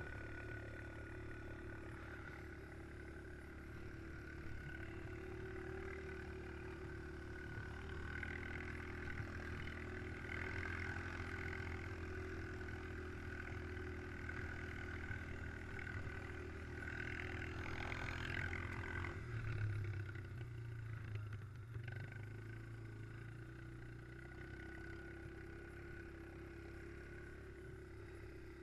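ATV engine running steadily while riding over snow, its pitch dropping about two-thirds of the way through as it eases off.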